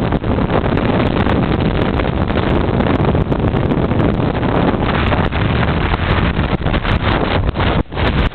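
Heavy wind noise buffeting the microphone over the running engine of a Honda XR 250 Tornado motorcycle being ridden at speed. The sound dips briefly near the end.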